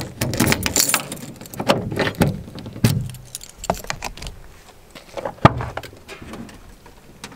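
A bunch of keys jangling and clicking as a key is worked in the lock of a white camper van's door. About five and a half seconds in there is a sharp, loud clunk as the door is unlatched and opened.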